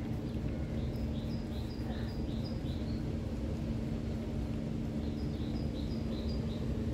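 A bird singing two runs of quick, repeated high chirps, the first about a second in and the second near the end, over a steady low drone with a constant hum.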